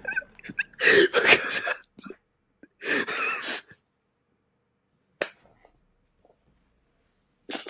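A person's breathy, cough-like vocal noises close to the microphone, in two short bursts, followed by a single click about five seconds in.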